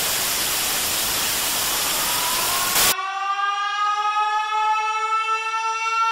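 Loud burst of TV-style static that cuts off suddenly about three seconds in. It gives way to a single sustained horn-like musical tone that rises slowly in pitch.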